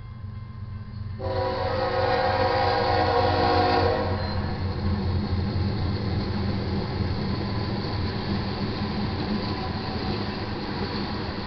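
Air horn of the lead GE ES44DC diesel locomotive sounds one long blast starting about a second in and stopping near 4 s. After it comes the steady heavy rumble of the locomotives and the freight cars of a manifest train rolling past.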